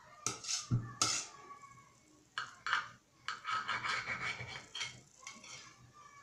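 A knife cutting through the baked crust of a sesame-topped brioche and scraping against the plate beneath. It comes in several short bursts of scraping and clinking.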